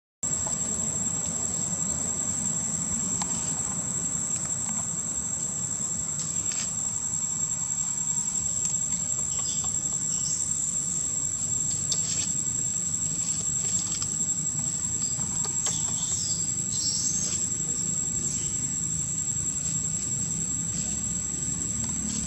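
Steady, high-pitched drone of insects, unbroken throughout, with a few short high chirps about ten and sixteen seconds in over a low background hum.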